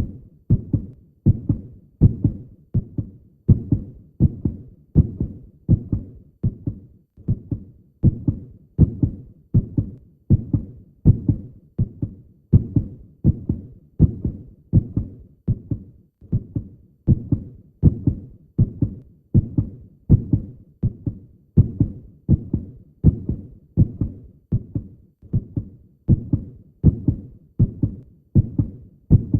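Human heartbeat sound: a steady lub-dub, two low thumps close together, repeating about once a second.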